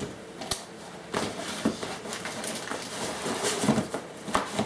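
Handling noise from unpacking: a series of separate light knocks and clicks about a second apart, with rustling of cardboard and packing material between them.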